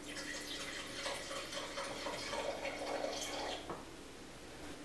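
Cherry wine being poured from a bottle into a stemmed wine glass: a faint, steady trickle of liquid that stops about three and a half seconds in.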